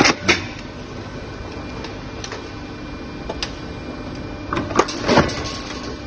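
Flexible duct connector machine running with a steady hum, with sharp mechanical strikes from its hole-notching punch station: one just after the start and two close together near the end, with fainter ticks between.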